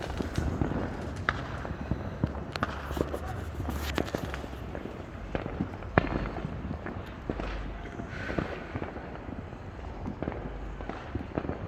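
Fireworks going off around the neighbourhood: a string of irregular sharp cracks and bangs at varying distances, the loudest about six seconds in, over a low rumble.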